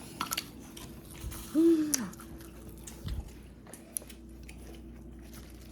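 A person chewing and eating close to the microphone, with small clicks and crisp mouth sounds, and a short hummed 'mm' from the eater about one and a half seconds in.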